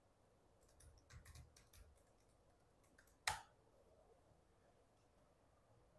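Faint keystrokes on a computer keyboard as a password is typed, then one louder keypress a little over three seconds in: the Enter key.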